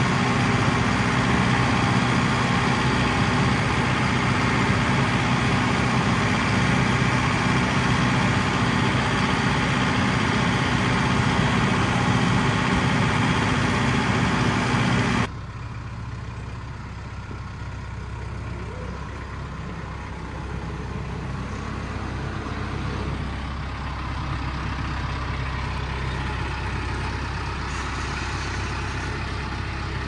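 Kubota tractor's diesel engine running, loud and close for the first half; after a sudden cut about halfway through it is heard at a steady, quieter idle.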